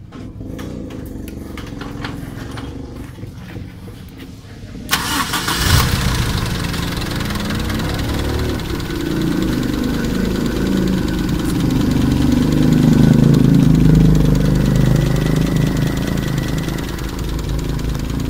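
Toyota 4K eight-valve four-cylinder engine being started: it cranks for about five seconds, then catches and runs steadily, rising a little before easing back. Its valvetrain ticks, a sign of valve clearances set too wide.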